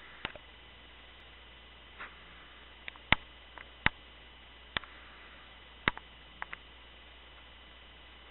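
Sleeping cat's faint snoring, heard as short sharp clicks coming unevenly about once a second over a steady hiss.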